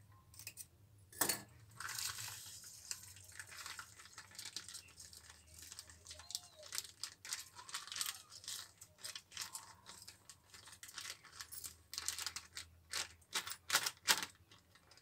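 Thin plastic packet crinkling and rustling in the hand as sugar is poured and shaken out of it into a bowl, with a sharp click about a second in.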